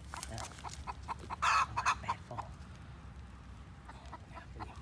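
Broody hen clucking in a quick run of short calls, loudest about a second and a half in, then quieter and sparser. She is off her clutch of eggs and calling while disturbed.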